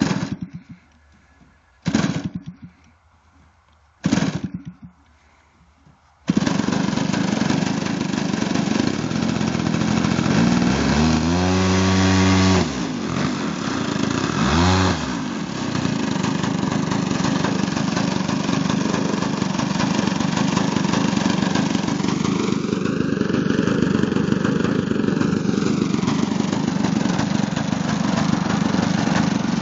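DLE 55cc single-cylinder two-stroke petrol engine of a large RC model plane being started: three short bursts as it fires and dies, then it catches about six seconds in and keeps running. It is throttled up for about two seconds, blipped once more, then runs steadily at low throttle.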